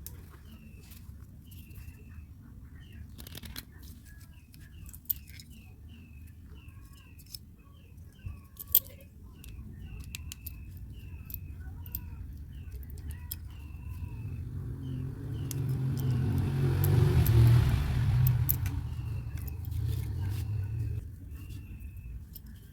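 A bird calling over and over in short repeated chirps. A vehicle passes, its rumble swelling to a peak about two-thirds of the way through and then fading. Two sharp clicks are heard in the first half.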